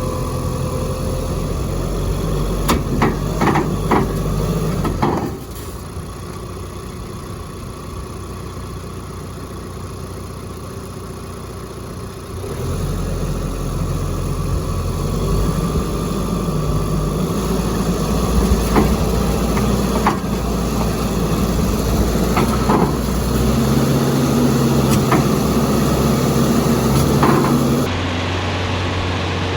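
Diesel engine of a Bobcat compact earthmoving machine running under working load. Its level drops about five seconds in and rises again near the middle, with several sharp metal clanks and knocks.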